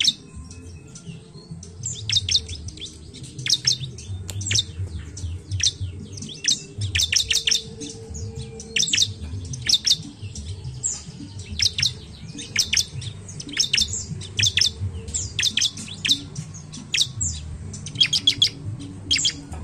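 Bar-winged prinia (ciblek) singing: quick, sharp, high chirps in short bursts of two to five, about one burst a second, over a faint low rumble.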